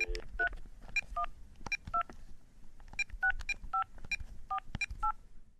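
Touch-tone telephone being dialed: the dial tone breaks off and a string of short keypad tones follows, each with a click, in two quick runs with a brief pause between them.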